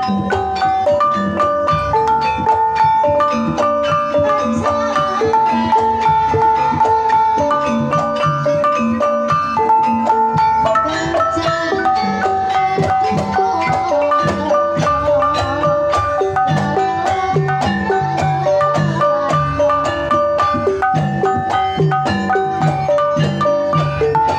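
Banyumasan-style gamelan ensemble playing: bonang kettle gongs struck with padded sticks in quick, steady melodic patterns, ringing over other bronze metallophones and regular drum strokes.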